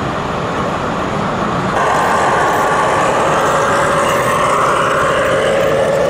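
OO gauge model diesel multiple unit in BR blue running past close by, its engine-like hum getting louder about two seconds in and holding steady, over the constant background noise of a busy exhibition hall.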